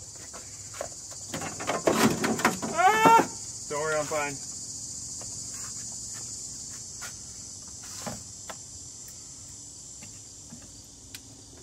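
Insects, likely crickets, chirring steadily. About two to four seconds in, a few short clattering sounds and brief vocal sounds rise over it, and there is a single click near the eight-second mark.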